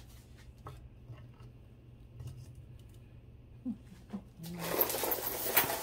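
Costume jewelry being handled: a few faint clicks, then from about four and a half seconds in a loud rattling clatter of plastic beads being picked up and moved about.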